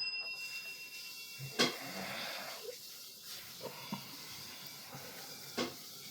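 The ring of a small bell, likely struck by the cat, dies away over the first second. After that come a few faint sharp clicks, the loudest about one and a half seconds in, over a low hiss.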